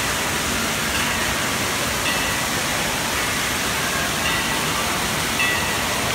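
Steady rush of water from splash-pad fountain jets and the streams pouring off a water-park play structure, with faint short high voices now and then.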